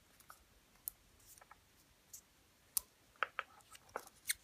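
Scattered light clicks and taps, with a little rustling, from the Apple Watch charging cable and its packaging being handled during unpacking; the clicks come closer together in the second half.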